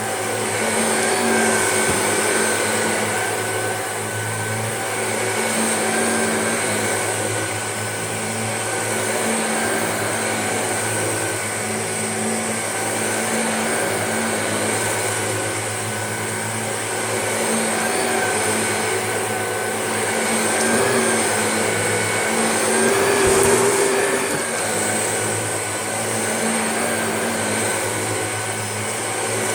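Shark vacuum cleaner running steadily on a faux fur rug, making a second pass to pick up what dirt is left. Its level swells and dips gently, with a brief low thump about 23 seconds in.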